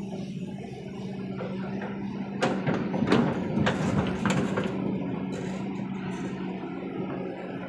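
Diesel engine of a Kobelco SK200 hydraulic excavator running steadily under load. A quick run of sharp knocks comes between about two and a half and four and a half seconds in.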